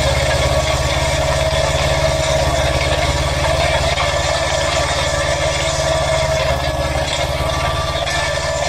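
Ursus C-330 tractor's two-cylinder air-cooled diesel running steadily while pulling a potato-planting implement through the soil, with a steady hiss over it.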